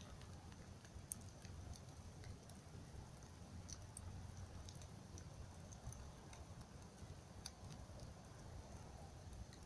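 Campfire crackling: scattered sharp pops and clicks, the loudest about a second in, over a low steady rumble.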